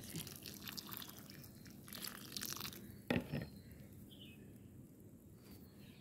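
Water poured from a mug onto a pot of loose soil and compost, splashing and trickling for about three seconds as the soil is given a thorough first soaking. A single knock a little after three seconds in, then it goes quiet.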